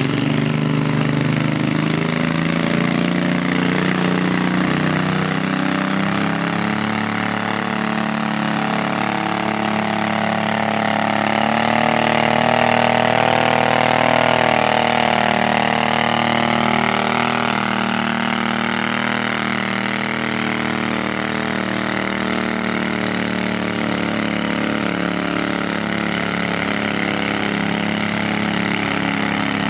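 Cub Cadet garden tractor engine running hard under load while it pulls a weight-transfer sled. It grows louder and higher about halfway through, then eases off toward the end.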